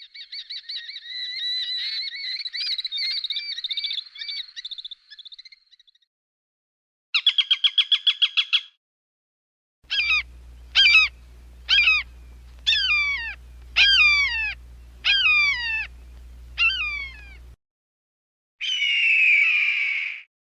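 Falcon calls from several separate recordings: a long chattering trill, a short burst of rapidly pulsed calls, then a run of about eight harsh screams, each falling in pitch, over a steady low hum, and one harsh scream near the end.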